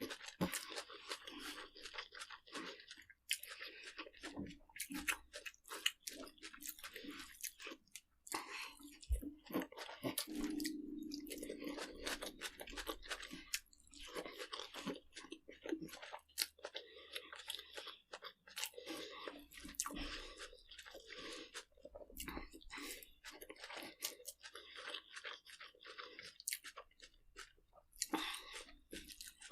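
Close-up crunching: many sharp crackles in irregular clusters with short pauses, and a brief low hum about ten seconds in.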